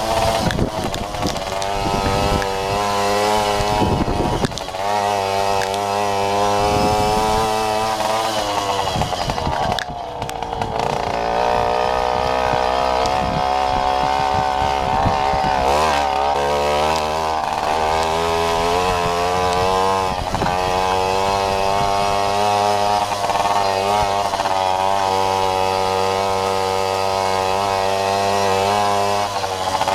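Babetta moped's small single-cylinder two-stroke engine running under load while ridden off-road, its pitch rising and falling as the throttle opens and closes. Several sharp knocks and rattles come in the first few seconds.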